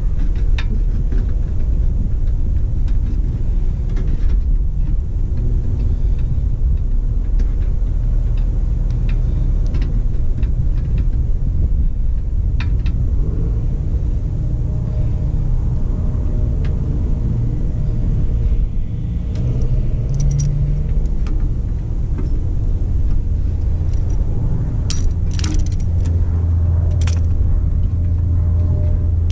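Steady low rumble of a truck's diesel engine idling close by, with a few small clicks and rattles of wire connectors being handled.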